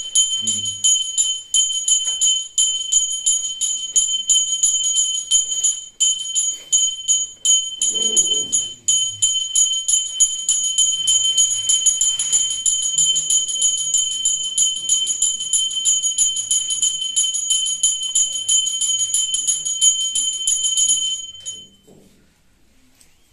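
Temple hand bell rung rapidly and without a break, giving a bright, high ring, as during the lamp-waving (aarti) at a Shiva shrine. It stops suddenly near the end.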